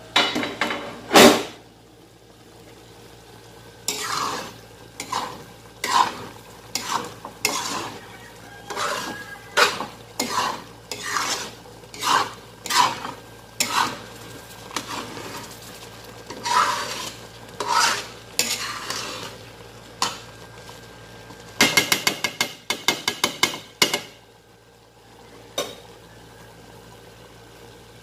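Metal ladle stirring thick chicken curry in an aluminium wok, scraping and knocking against the pan about once a second. At the start the wok's lid clanks as it is lifted off, and about two-thirds through there is a quick run of rapid clattering taps.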